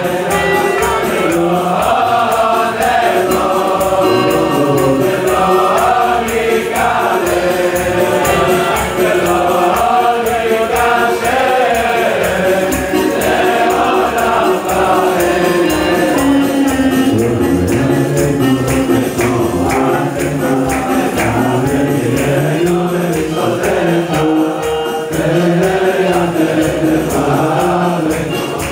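A group of voices singing a melody together, backed by a steady rhythmic beat.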